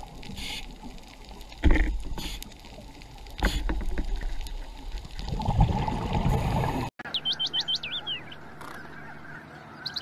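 Muffled underwater camera noise with two sharp knocks and a rushing swell, cut off abruptly. Then a quick series of high, bending bird calls.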